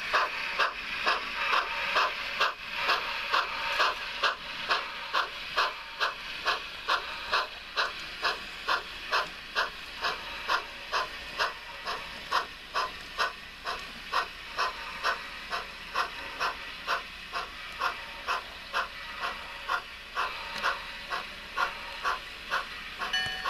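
Model steam locomotive, Yosemite Valley 2-6-0 #29, its sound system playing steady, even steam exhaust chuffs, about two and a half a second, over a continuous hiss as it pulls its train.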